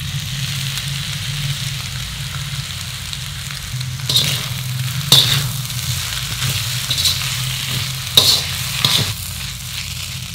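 Noodles and vegetables sizzling in a hot wok as dark sauce goes in, then tossed with a metal slotted spatula that scrapes and knocks against the pan about five times in the second half.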